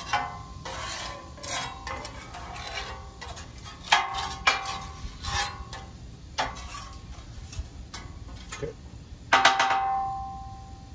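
Metal scraper pushed across the oiled steel cooktop of a hot Blackstone flat-top griddle, scraping and clanking against the plate several times. The loudest clank comes near the end and leaves the plate ringing for about a second.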